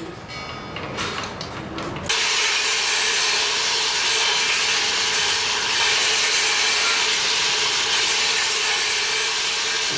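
Faint metallic clinks and rubbing, then about two seconds in a machine starts suddenly and runs steadily, a hiss with a constant hum under it, like a power tool working.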